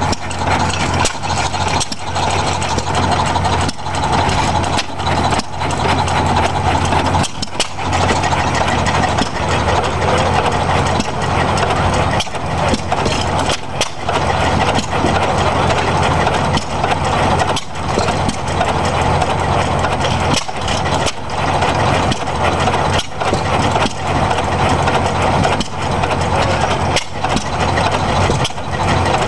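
Antique hit-and-miss stationary gas engines, among them a red Economy engine, running: sharp exhaust pops at uneven intervals as they fire and coast on their flywheels, over a steady hum of other engines.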